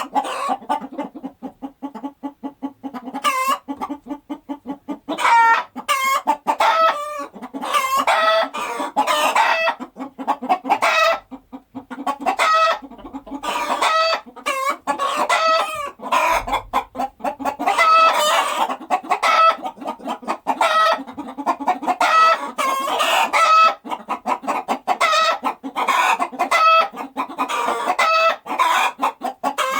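Chickens clucking and calling, many calls overlapping in a steady chatter.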